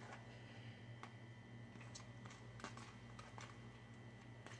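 Near silence over a steady low hum, with a few faint, light clicks from a metal spoon in a bowl of cherry cream filling.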